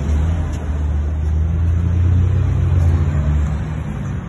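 Tow truck engine running with a steady low hum, growing a little louder around the middle and easing off near the end.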